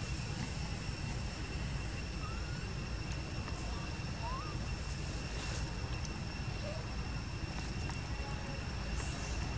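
Outdoor ambience: a steady low rumble with a thin, steady high whine above it, and a few short, faint chirps about two and four seconds in.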